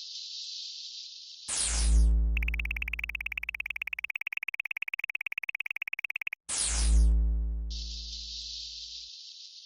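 Synthesized game sound effects. A steady high hiss is broken about 1.5 s in by a falling electronic sweep with a deep bass thud. Then a high electronic tone pulses rapidly for about four seconds, a second falling sweep with a bass thud follows, and the hiss returns.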